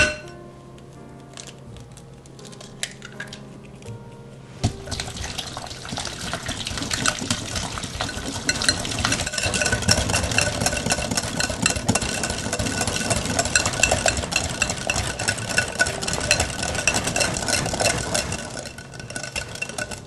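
A wire balloon whisk beats cream cheese, egg and sweetener by hand in a glass mixing bowl: a fast, steady scraping and clicking of the wires against the glass. It starts about five seconds in and eases off near the end. A single sharp knock comes at the very start.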